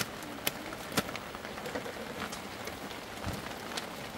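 Steady rain falling, with scattered sharp drop ticks on a surface close by and a dull knock a little after three seconds in.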